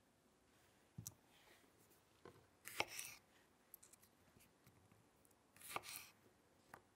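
Small knife slicing blueberries on a wooden cutting board: two short cuts about three seconds apart, each ending in a tap of the blade on the board. A light knock comes about a second in.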